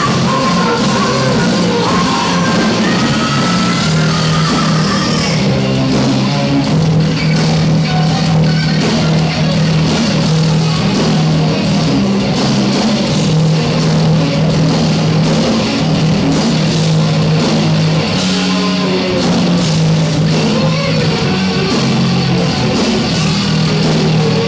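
A rock band playing live and loud: distorted electric guitar and drums, with a singer's voice at the start and in places after. It is a muddy, poor-quality amateur recording of the concert.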